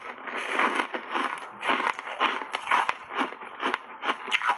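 Reshaped foam ice coated in matcha powder being chewed: a steady run of crisp crunches, about three a second.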